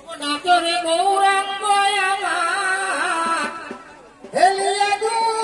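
Devotional kirtan singing: a high voice holding long, steady notes, breaking off about three and a half seconds in and starting again a moment later.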